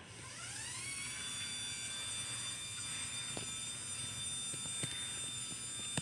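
LiftMaster 87504-267 belt-drive garage door opener's DC motor running the door from the remote. Its whine rises in pitch over about the first second as it starts, then runs steady.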